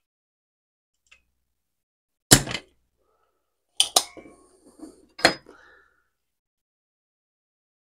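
Spring-loaded desoldering pump (solder sucker) snapping as it is fired and re-cocked while pulling molten solder off a buzzer's pins: a sharp snap about two seconds in, a quick pair near four seconds, and another just after five seconds, with light rattling between.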